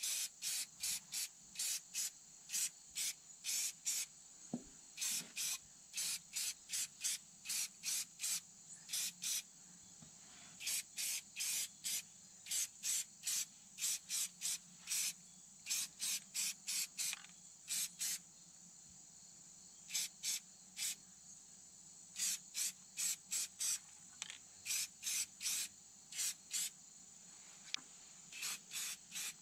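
Aerosol spray-paint can spraying in dozens of short bursts, about two a second in runs, with brief pauses between runs, as paint is laid onto a tractor loader's hydraulic diverter valve.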